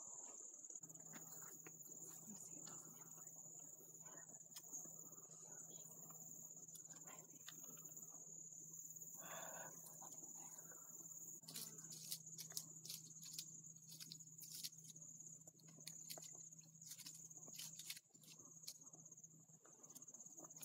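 Faint, steady high-pitched insect chirring, with scattered light clicks in the second half.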